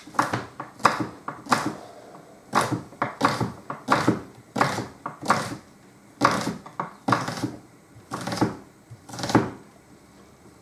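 A kitchen knife chopping onion on a cutting board: a run of uneven, sharp chops, about one to two a second.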